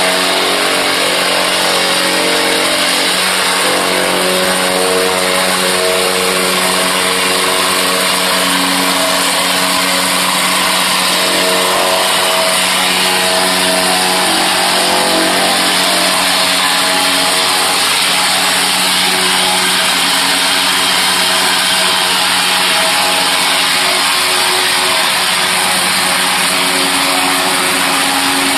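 Wacker Neuson DPU3070 reversible vibratory plate compactor running steadily under its diesel engine, the vibrating plate working over loose crushed stone. A loud, even hum with a dense rattling hiss, unchanged throughout.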